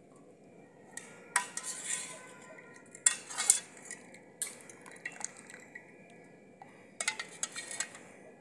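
A wire-mesh skimmer and a steel ladle clink and scrape against a steel bowl and a metal kadhai in four short bursts of clatter as boiled watermelon-rind pieces are scooped out and tipped in. Water splashes from the ladle poured over the skimmer.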